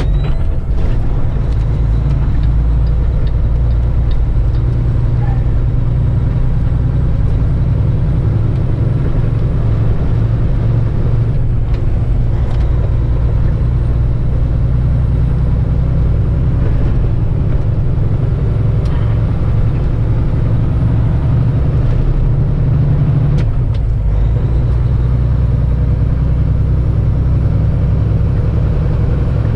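Heavy truck's diesel engine droning steadily under load while driving, heard from inside the cab, with road noise. About two-thirds of the way through, the engine note shifts after a brief dip.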